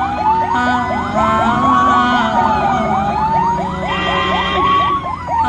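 Ambulance electronic siren sounding loudly in two patterns at once: a slow wail rising and falling about every three seconds, over a fast yelp of several quick upward sweeps each second.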